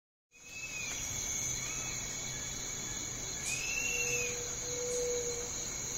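A steady, high-pitched cricket-like insect trill that fades in just after the start, with a few short rising-and-falling chirps over it.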